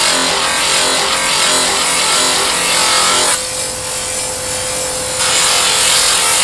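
Belt-driven grinding wheel grinding a steel sheet, a steady harsh rasp. About three seconds in, the grinding stops for a couple of seconds and only the hum of the spinning wheel is left, then the metal is pressed back on and the rasp resumes.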